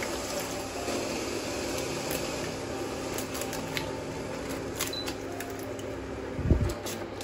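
Eggs being cracked one by one into a stainless steel pot of water, with sharp taps of shell on the pot and a louder knock near the end, over a steady hiss.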